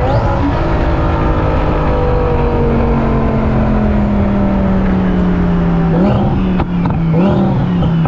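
Twin-turbo Audi R8 engine running loud, its note sinking slowly for about six seconds, then rising and dropping in short quick steps near the end, with a few sharp cracks.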